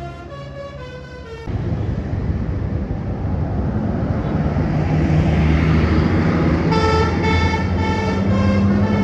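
Bus horns: a Basuri musical telolet horn plays a stepping melody, then about a second and a half in a loud, sustained low air-horn blast from the Alzifa air horn cuts in and holds. The melody comes back over it near the end.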